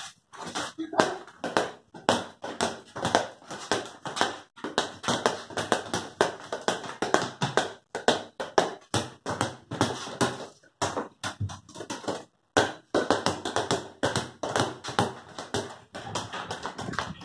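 Small rubber ball bounced repeatedly on a concrete floor by hand, a quick, uneven run of sharp taps with a few short pauses.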